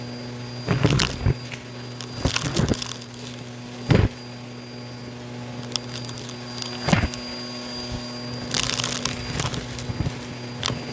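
Bissell vacuum running with a dusting brush and hose attachment on a dusty shag rug: a steady motor hum with a faint high whine, broken every second or two by short crackles and rattles of debris and grit going up the hose.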